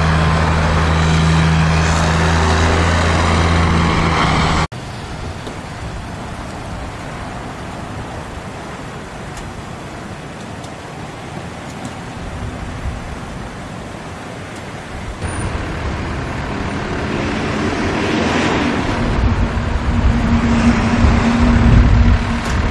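A brine truck's engine running steadily and loudly, cut off abruptly about four and a half seconds in. Then comes quieter steady traffic noise, which grows louder in the second half as vehicle engines rumble close by.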